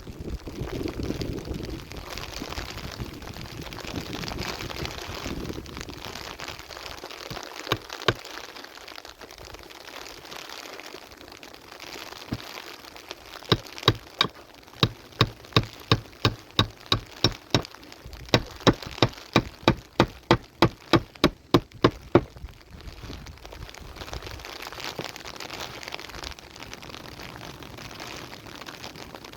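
A steady hiss, and from the middle of the stretch a run of sharp regular crunches or knocks, about two to three a second, lasting some eight seconds before stopping.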